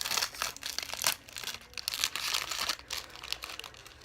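Plastic wrapping of an LOL Surprise doll package being torn open and crinkled by hand: a busy run of irregular crackles and rips that thins out near the end.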